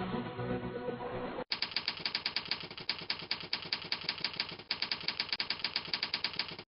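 An electronic dance-music outro fades out and stops short. Then a typewriter sound effect clicks fast and evenly, about eight keystrokes a second, with one brief pause, as on-screen text types itself out.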